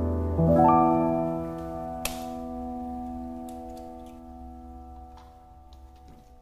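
Background piano music: a chord struck about half a second in, held and slowly fading away. A single sharp click about two seconds in.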